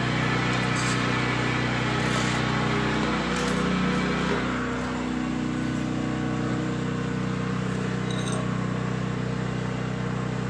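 Kalamazoo 8C horizontal band saw running with its blade cutting through square steel tubing: a steady motor and drive hum, with a few faint metallic ticks.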